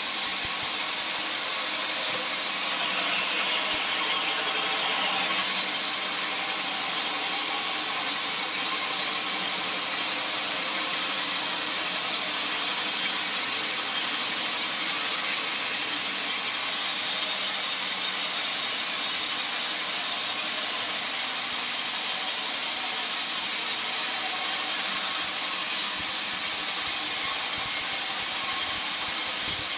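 Sawmill saw running steadily, a constant mechanical noise with a high whine over it.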